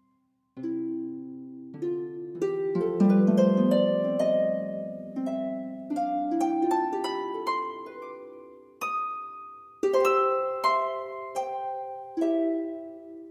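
Background music played on a harp: plucked notes in rising runs and chords, each note ringing and fading.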